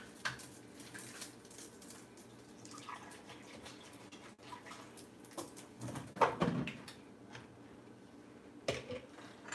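Water poured from a plastic gallon jug into a glass blender jar packed with banana pieces, with a few short knocks as the jug is handled and set down.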